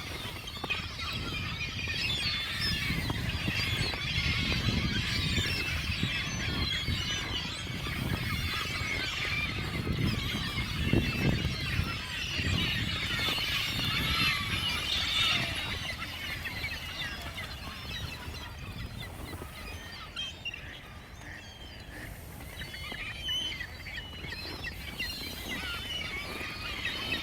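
A large flock of seagulls calling over one another in short, high squealing cries, with ducks among them. The chorus is densest in the first half and thins out in the second, over a low rumble.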